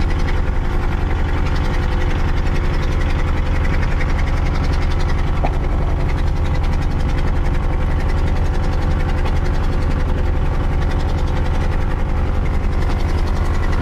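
A sailing trimaran's auxiliary engine running steadily under way at low speed, a constant hum with a fast, even pulse.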